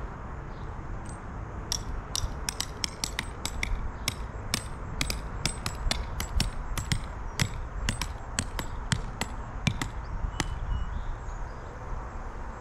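Hammer striking a metal ground stake to anchor an inflatable water slide: a run of sharp clanks, a few a second, that starts about two seconds in and stops about ten seconds in.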